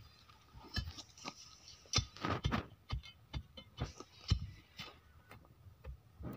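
Iron crowbar tamping soil and stones into the hole around a wooden fence post: a run of irregular knocks and thuds, with soil being pushed in by hand between them.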